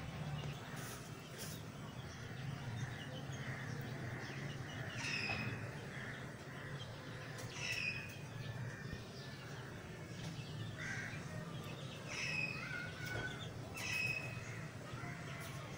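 Birds calling in the background, a short chirping call repeating every couple of seconds, over a low steady hum.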